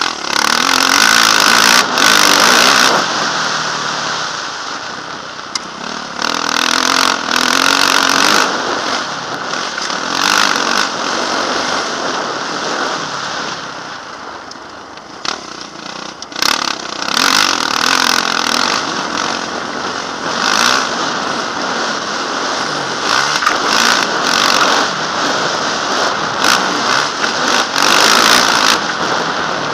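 Yamaha dirt bike engine being ridden hard, revving up and easing off as the rider works the throttle over a dirt motocross track, the sound swelling and dropping every few seconds. Wind rushes over the helmet-mounted microphone.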